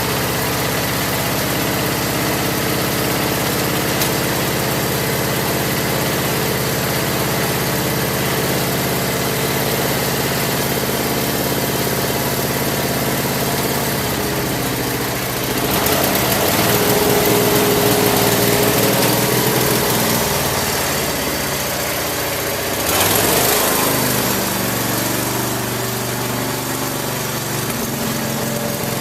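Craftsman lawn tractor engine running steadily, left to warm up after its carburetor and fuel pump were replaced. It gets louder from about 15 to 20 seconds in, then again briefly around 23 seconds.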